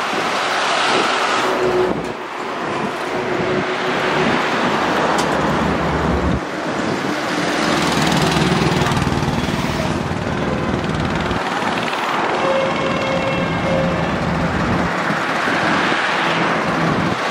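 Several diesel tractor engines running close by as a column of tractors idles and creeps forward, a steady mixed engine drone with road noise.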